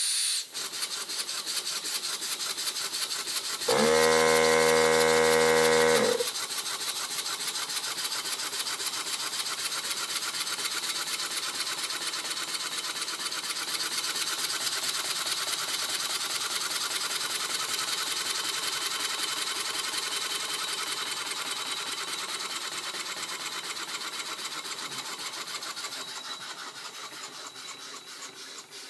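Model W. A. Coombers rotary steam engine running on compressed air from a small 2-gallon tank: a fast, even chuffing of exhaust puffs with a steady air hiss, growing gradually quieter over the last several seconds. Air leaks around the hollow shaft and its bushing. About four seconds in, a loud steady humming tone sounds for about two seconds.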